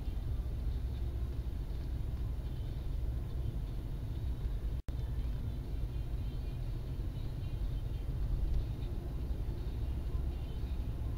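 Car driving, heard from inside the cabin: a steady low rumble of engine and tyres on the road. The recording drops out to silence for a split second about five seconds in.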